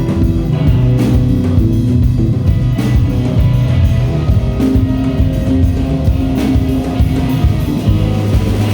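Music with guitar and a drum kit, loud and steady, in a rock style.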